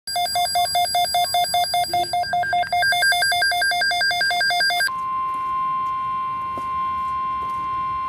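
Emergency alert signal from a NOAA Weather Radio broadcast: rapid electronic beeps, about five a second, stepping from a lower to a higher pitch, then about five seconds in a single steady tone, the 1050 Hz warning alarm tone that comes before a severe weather bulletin.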